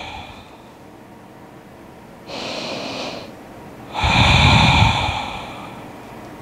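A person's slow, deep breathing close to the microphone: a quieter inhale a little over two seconds in, then a longer, louder exhale from about four seconds in.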